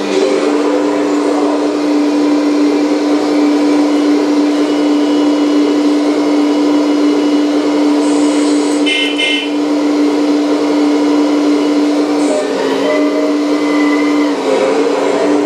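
Hydraulic pump of an RC Volvo EC480D model excavator running with a steady whine, its pitch sagging briefly twice near the end. It is the older, non-silent pump type, so the whine is loud. A short high warble sounds about nine seconds in.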